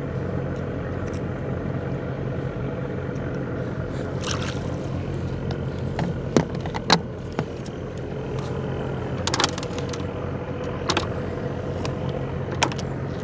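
Small motorboat's engine idling steadily, with a handful of short sharp knocks and clatters scattered over it.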